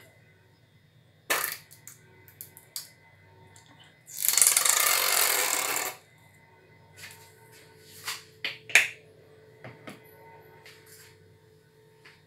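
Kitchen handling sounds while a salad is prepared: sharp clicks and knocks of utensils and containers, with about two seconds of loud rustling hiss a few seconds in.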